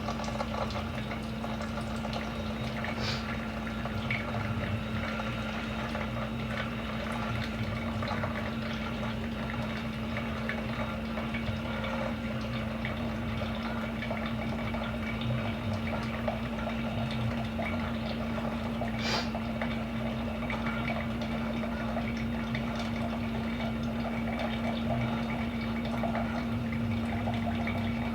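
Keurig single-serve coffee maker brewing: a steady pump hum with coffee streaming and dripping into the cup.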